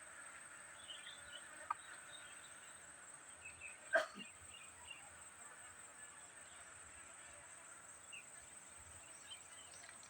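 Steady high-pitched insect buzz with faint scattered chirps. A short sharp click comes about four seconds in, the loudest sound, with a fainter one shortly before two seconds.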